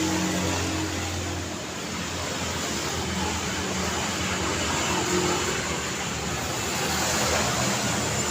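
Dense city road traffic: cars and motorbikes passing, a steady wash of tyre and engine noise with low engine hums coming and going, growing a little louder near the end.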